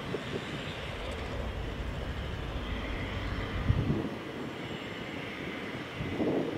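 Airbus A319 jet engines running: a steady rumble and hiss, whose deepest rumble fades about four seconds in.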